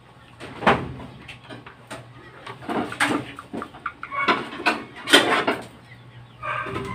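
Irregular knocks and clatter of wood and corrugated sheet metal being handled on top of a chicken cage, with chickens clucking among them.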